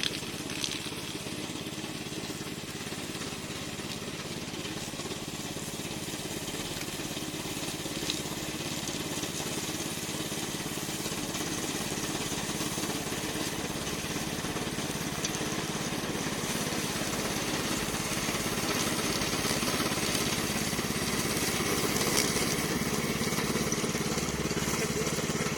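Remote-control lawn mower running steadily while mowing, its engine hum growing slowly louder.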